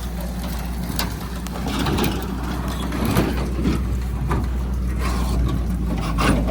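Heavy diesel machinery engine running steadily, with intermittent metallic clanks and knocks over it.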